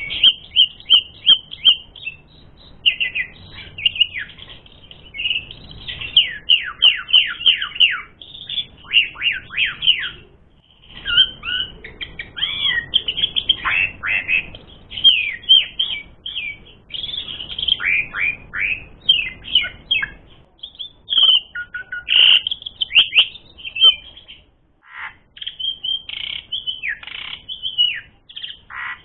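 Asian pied starling (jalak suren) singing at full tilt: a long, rapid run of chattering, downward-sweeping whistled notes, with short pauses about ten seconds in and again near 24 seconds.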